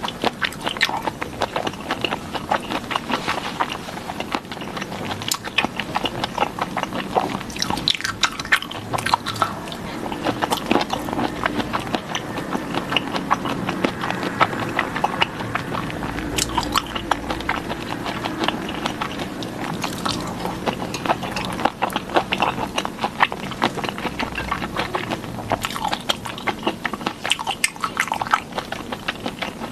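Close-miked eating of sauced shrimp: biting and chewing, with a dense, irregular run of small wet clicks, smacks and crackles.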